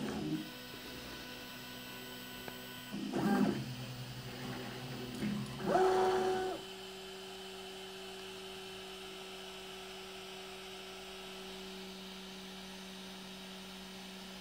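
Prusa i3 3D printer's stepper motors whining through print moves, with the pitch sweeping up and down three times. From about six and a half seconds only a steady hum remains.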